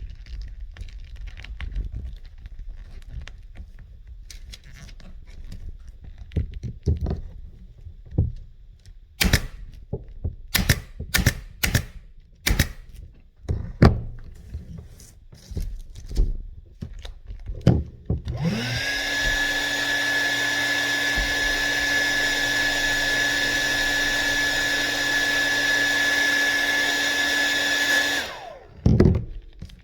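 Scattered knocks and sharp clicks, then a small electric motor starts up with a brief rising whine and runs steadily and loudly for about ten seconds before stopping.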